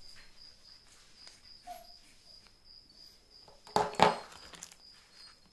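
A cricket chirping steadily in the background, a high, evenly repeating chirp. About four seconds in, two louder sharp handling knocks.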